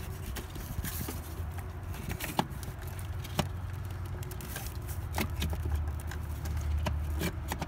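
Hands working a wiring connector and its wires back into place in a truck's engine bay: scattered small clicks and rustles over a steady low rumble.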